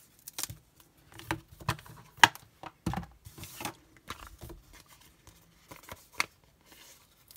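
Irregular light clicks, taps and paper rustles of hands handling a red rubber stamp, its clear plastic case and sheets of cardstock on a craft mat, with one sharper knock a little over two seconds in.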